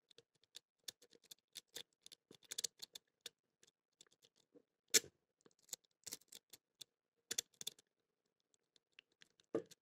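Faint, irregular metallic clicking and scraping of a city rake working the pin stack of a BANE Plus padlock under light tension, with one louder click about five seconds in.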